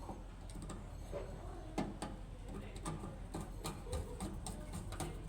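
Irregular light clicks and knocks, two or three a second, over a steady low hum.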